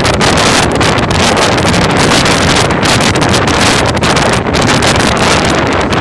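Heavy wind rushing over the microphone of a motorcycle riding at highway speed, a loud steady roar that covers the engine and road noise.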